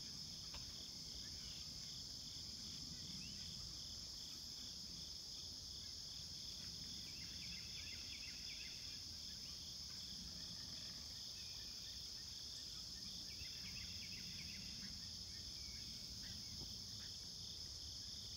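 Steady, high-pitched chorus of cicadas with a rapid pulsing under the drone. Songbirds chirp over it in two short bouts, one around the middle and one later on.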